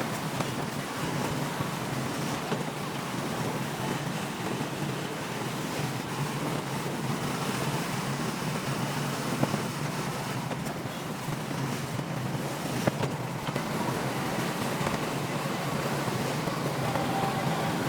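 Bulldozer's diesel engine running steadily at work, with a couple of sharp knocks, one near the middle and another a few seconds later.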